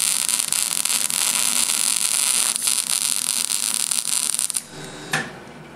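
Electric arc welding on a steel plate: a loud, steady, sizzling crackle of the arc that cuts off suddenly about three-quarters of the way through, followed a moment later by a brief knock.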